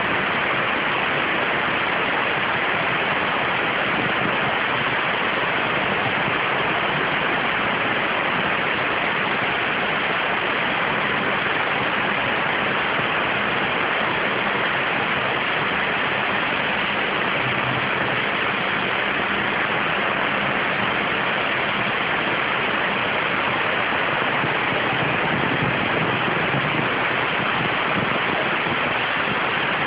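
CNC waterjet cutting 0.6 mm stainless steel sheet: the high-pressure jet makes a steady, unbroken hiss.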